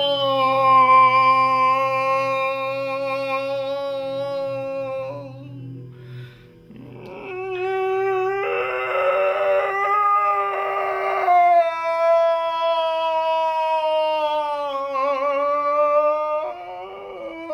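A wordless voice holding long, howl-like tones that slide slowly in pitch, with a short break about six seconds in and a rougher, breathier stretch a couple of seconds later.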